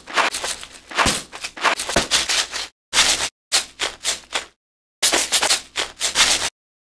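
Shaker samples previewed one after another: a string of short, bright rattling shakes, about six or seven, each stopping dead into silence before the next.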